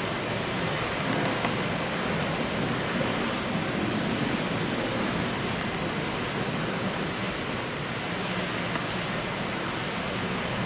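Steady, even hiss of indoor pool-hall room noise, from air handling and water circulation, with no distinct events.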